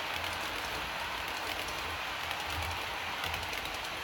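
Model Amtrak Superliner passenger cars rolling past on the layout's track: a steady hissing rush of wheels on rail with faint uneven low rumbles.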